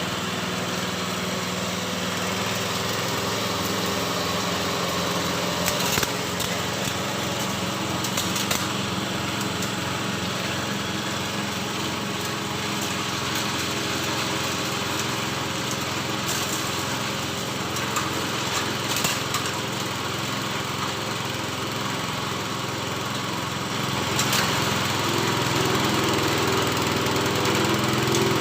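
Livestock forage chopper machine running on a small engine, a steady hum with a few sharp clicks, getting a little louder about three-quarters of the way through.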